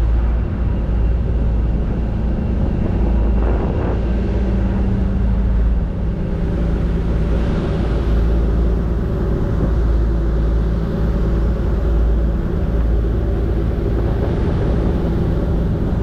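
Passenger ferry's engines droning steadily, with the rush of the churning wake water alongside.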